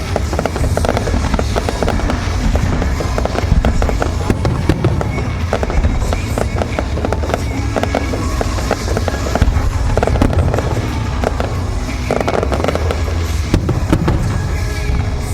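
Fireworks display: a dense, continuous run of sharp crackling reports over a steady low rumble of bursting shells.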